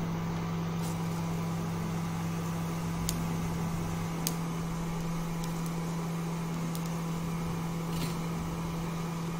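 Steady electrical hum of an induction cooktop running under a kadhai of hot oil, with a few faint ticks from cumin seeds crackling in the oil.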